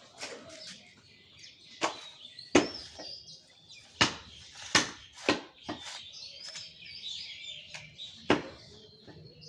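Butcher's knife knocking against a wooden log chopping block while cutting a beef leg: several sharp knocks at uneven intervals, with small birds chirping throughout.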